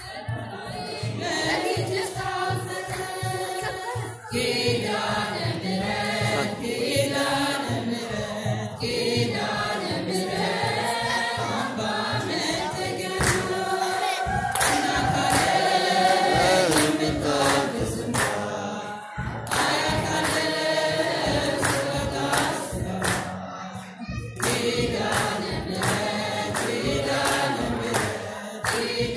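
Ethiopian Orthodox church choir singing together, with a steady percussive beat running under the voices.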